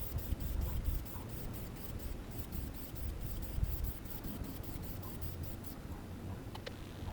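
Quick, even scratching strokes, about four a second, over a low rumble, stopping near the end.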